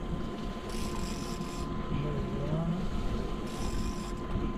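Twin Yamaha outboard motors running steadily at trolling speed, with wind noise on the microphone.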